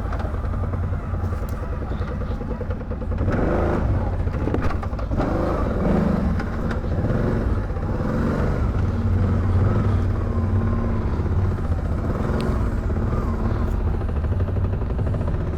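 ATV engine running at low, steady throttle while the machine crawls along a rough trail, growing somewhat louder with added rattling about three seconds in.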